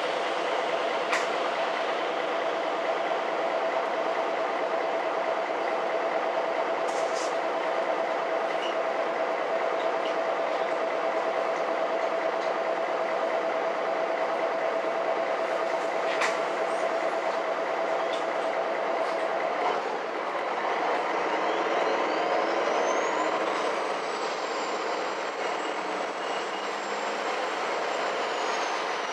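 Interior ride noise of a MAN NG 313 articulated city bus: steady running noise with a constant whine and a few sharp rattles or knocks. About two-thirds of the way through the steady whine stops, and a thin high whine rises steeply and then holds.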